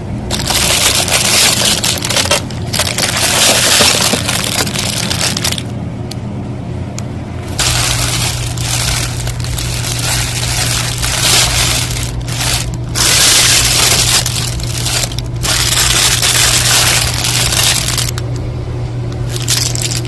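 Hands rummaging through loose costume jewelry and its plastic packaging: continuous rustling, crinkling and small clattering, loud, with a few short pauses. A steady low hum runs underneath and cuts off suddenly at the end.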